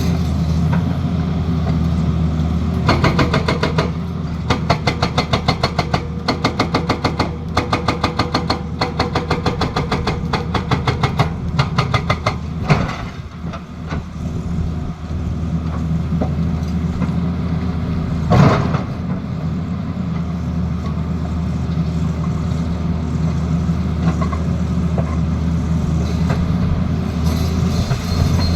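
Excavator diesel engine running steadily while a hydraulic breaker hammer strikes in fast, even blows, about four a second. The hammering stops about halfway through. One loud single bang comes a few seconds later.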